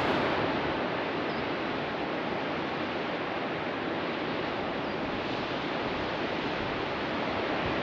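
Steady, even rush of ocean surf mixed with wind.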